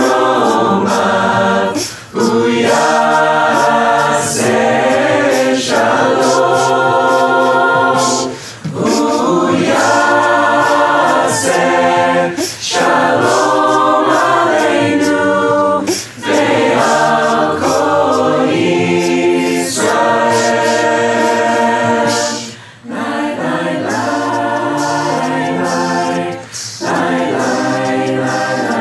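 A large mixed-voice a cappella choir, made of many separately recorded singers, sings in close harmony with no instruments. The singing goes in long held phrases, with short breaks for breath every few seconds.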